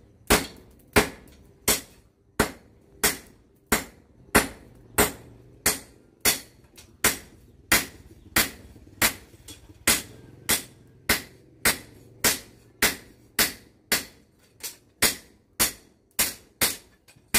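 Hand hammer striking a thin knife blade of bearing steel on a steel post anvil: steady, evenly spaced blows about one and a half a second, each a sharp clank with a short metallic ring. The blows quicken slightly near the end.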